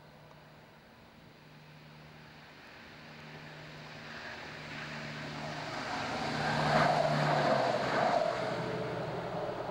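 Class 170 Turbostar diesel multiple unit approaching with a steady engine drone that grows louder, then passing close by with a rush of wheel and rail noise and a few sharp clacks, loudest about seven seconds in and fading after it has gone by.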